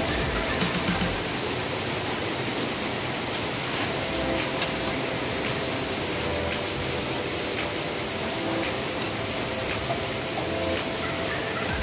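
Steady rushing hiss of stovetop cooking, with faint light clicks of metal tongs handling prawns and crab in a stainless pan.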